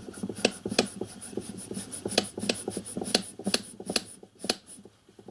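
Bronze piston and stainless-steel piston rod worked back and forth by hand in a miniature steam locomotive cylinder: a run of light, irregular metal clicks and rubbing, a few a second.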